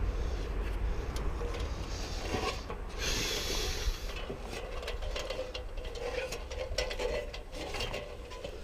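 Climbing down an aluminum ladder: scrapes, rubs and light clicks of hands and shoes on the metal rungs and rails, over a low rumble of wind and camera handling. A brushing hiss lasts about a second, about three seconds in.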